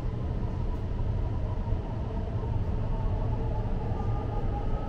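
A metro train running at speed through a tunnel, heard from inside the car: a steady low rumble with a faint high whine that rises slightly near the end.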